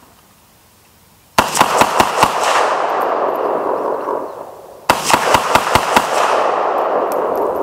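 AK-47-pattern rifle with a slant muzzle brake firing two quick strings of about seven shots each, the first starting about a second and a half in and the second about three and a half seconds later. Each string is followed by a long rolling echo.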